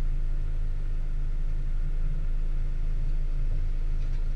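Car engine idling with a steady low rumble, picked up by a camera on an open-top car. Another car drives past close by near the end.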